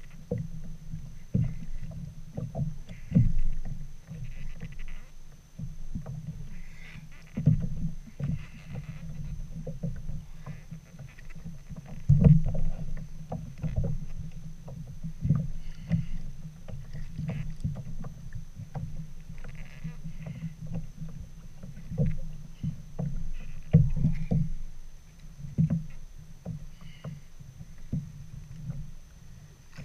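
Small waves lapping and knocking against the plastic hull of a Hobie Outback kayak, with many irregular bumps and thuds.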